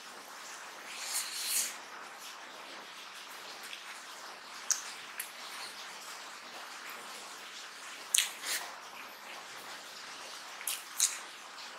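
Close-miked chewing and wet mouth smacks of a person eating rice and mutton curry by hand: short sharp clicks and smacks every few seconds over a steady hiss.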